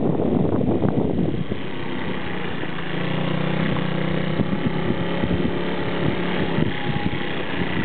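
Motorbike engine running at a steady, low pitch while riding, with wind buffeting the microphone, heaviest in the first second and a half, and scattered short knocks as the bike goes over the rough road.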